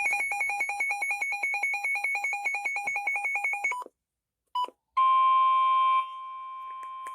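Electronic emergency-alert tones from a weather-radio warning broadcast. A rapid warbling two-tone burst pulses about eight times a second for nearly four seconds, then cuts off. After two short blips comes a steady single alarm tone, which drops in level about a second after it starts and holds on.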